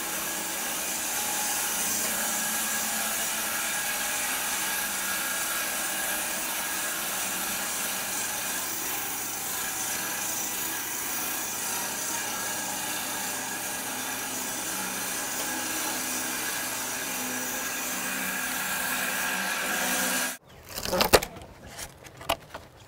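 Homemade bandsaw mill cutting lengthwise through a large elm log: a steady machine hum with the blade hissing through the wood. It cuts off suddenly about twenty seconds in, and a few sharp wooden knocks follow as a cut piece of the log is handled.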